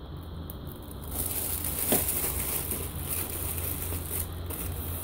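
Clear plastic bag around a hardcover comic book crinkling and rustling as the book is handled and slid back onto a shelf, with a soft knock about two seconds in.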